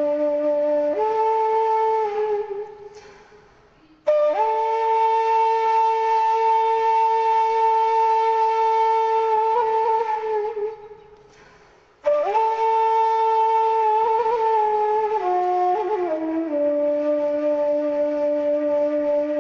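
Background music: a flute-like wind instrument playing long held notes in slow phrases. Each phrase fades away before the next begins with a short upward slide, twice.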